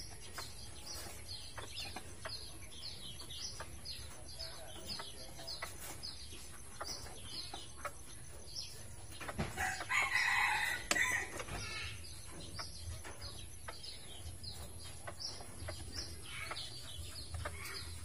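A rooster crowing once about ten seconds in, the loudest sound, over a steady run of short high chirps at about two to three a second.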